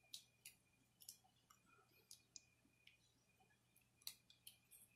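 Near silence: room tone with a few faint, scattered clicks and taps, the most distinct about four seconds in.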